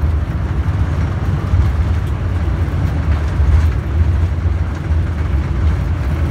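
Steady low rumble of a Boeing 787 rolling out on the runway after touchdown, heard inside the cockpit.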